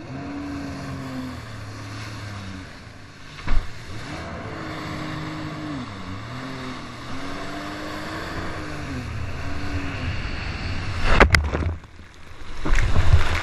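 Sea-Doo personal watercraft engine running at speed over ocean swells, its pitch rising and falling with the throttle, with a sharp slap of the hull on the water about three and a half seconds in. Near the end come two loud crashes of water and spray as the craft hits a wave crest hard, the impact that snapped off parts of its hood.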